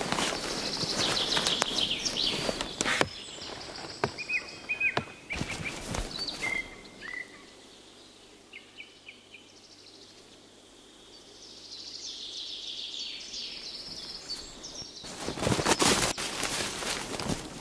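Small birds chirping and twittering in woodland. Rustling, shuffling noise stands out at the start and again near the end, with a quieter stretch between in which only the chirps are heard.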